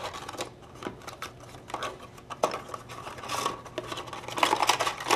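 Light clicks and clatter of small parts from a paintball-marker double trigger kit being handled and set down on a bench, with a brief rustle a little past halfway and a quick run of clicks near the end.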